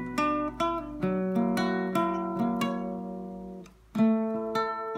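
Acoustic guitar with a capo, its chords plucked and left ringing. A little before the end the notes die away for a moment, then a loud new chord is struck and rings on.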